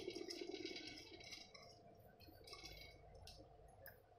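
Faint light clinking and ticking as bangled hands handle an aluminium pressure cooker: glass bangles and the cooker's metal knocking lightly together.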